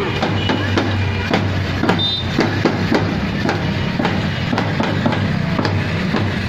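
Marching band side drums beaten in a steady marching rhythm, about three strikes a second, over a low steady drone.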